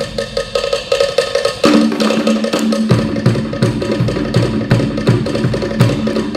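Cook Islands drum ensemble playing fast, driving rhythms on wooden slit drums (pate), a dense stream of sharp wooden strokes. A deep bass drum is silent at first and comes back in with heavy beats about three seconds in.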